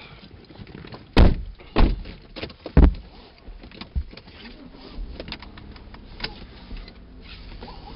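Car doors shutting as people get into the front seats: three loud thumps within about two seconds, then a lighter knock and softer rustling and handling sounds.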